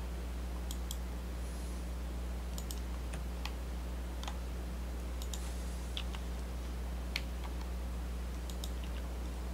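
Scattered, irregular clicks of a computer mouse and keyboard while drafting on a computer, over a steady low electrical hum.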